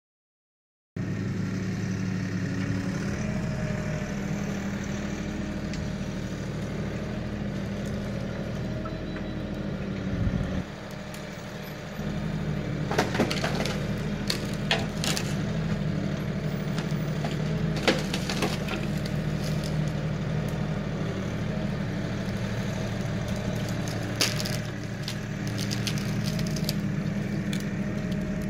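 Kioti NX6010 tractor's diesel engine running steadily under load; its note dips briefly about ten seconds in, then comes back. Over it, wood cracks and snaps in sharp bursts several times in the second half as trees and branches are pushed over and broken.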